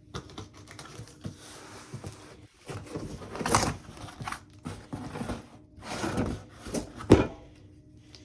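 Packaging being handled and opened: crinkling and rustling with scattered clicks and knocks, in uneven bursts, the loudest about seven seconds in.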